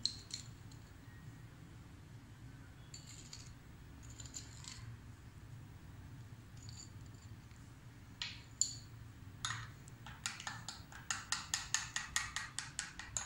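A steel spoon stirring blended aloe vera and lemon juice in a small glass bowl, clinking against the glass. There are a few scattered clinks at first, then from about ten seconds in a quick run of clinks, several a second, with a low steady hum underneath.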